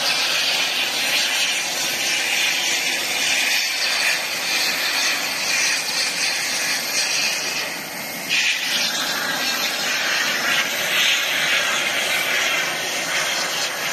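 Aircraft engine noise, a steady loud hiss that dips briefly about eight seconds in.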